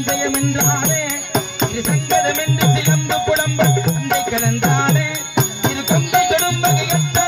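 Live folk-drama accompaniment: hand drums played in a fast steady rhythm, their deep strokes bending downward in pitch, with small bell-like cymbals on about four beats a second and a held melody over them.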